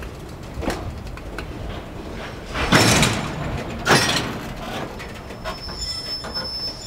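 Empty freight container flat wagons rolling slowly over the track: scattered metallic knocks, then two loud clanks about a second apart near the middle, and a steady high wheel squeal starting about two-thirds of the way through.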